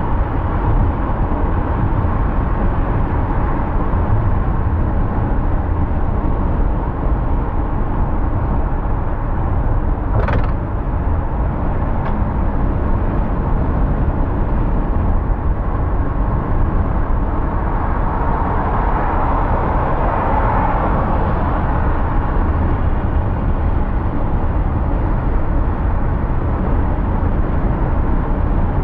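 Steady driving noise of a car on city streets: a continuous low rumble of tyres and engine. There is a brief sound falling in pitch about ten seconds in, and the noise swells for a few seconds past the middle.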